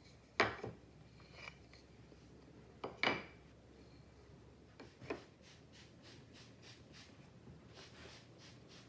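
Three pairs of sharp knocks in the first five seconds, then light, even back-and-forth rubbing strokes by hand, about three a second.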